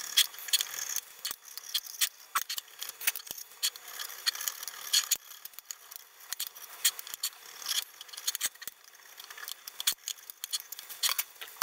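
Flat steel hand scraper taking paint off the machined mating faces of a Boxford lathe apron casting: short, irregular scraping strokes with sharp metallic clicks as the blade catches the rims of the bosses.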